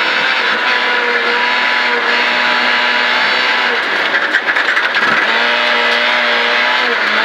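Rally car engine heard from inside the cabin, held at a steady high note in fifth gear over gravel and tyre noise. Around four to five seconds in the note dips and wavers as the driver lifts and shifts down to fourth, then it steadies again.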